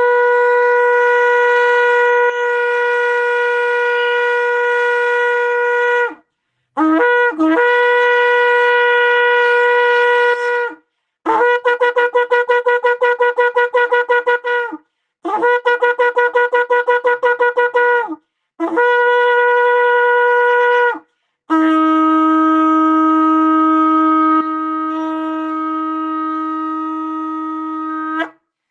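A long, twisted horn shofar blown in a series of six loud blasts, each starting with a quick upward flick of pitch. Most are steady held notes; the third and fourth pulse rapidly; the last is the longest, about seven seconds, and lower in pitch.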